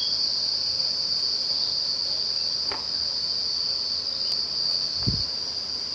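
A cricket trilling steadily and high-pitched throughout, with a faint tap and a soft low thump about five seconds in as the watermelon wedges are handled on the plastic tray.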